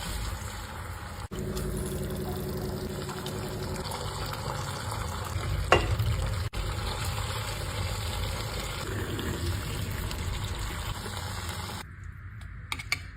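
Food sizzling and frying in a pan, with stirring. There is a single sharp clink a little before the middle. Near the end the sizzle drops away to a quieter background with a few light taps.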